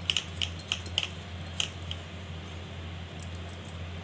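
Light clinks and taps, about eight in the first two seconds, as chopped onion is tipped and scraped out of a small glass bowl into a plastic mixing bowl. A steady low hum runs underneath.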